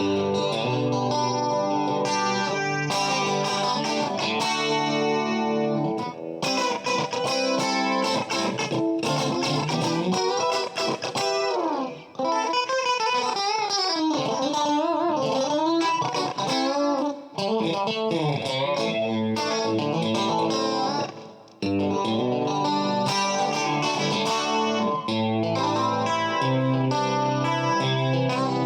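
Electric guitar played through effects pedals, strummed chords at first. In the middle come single notes that waver and bend in pitch, and then chords return.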